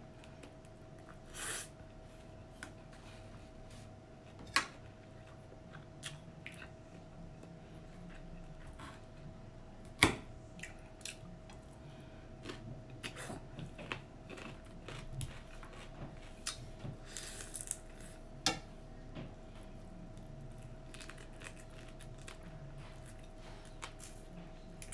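A person eating lobster and stir-fried noodles: soft chewing and sucking of meat from a lobster leg, with a few sharp clinks of a fork against the plate, the loudest about ten seconds in. A faint steady hum sits underneath.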